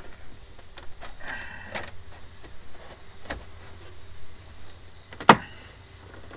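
Plastic dashboard trim of a Jeep being worked into place by hand: a short plastic squeak and scrape about a second and a half in, a few light clicks, and one loud sharp snap about five seconds in as a piece seats.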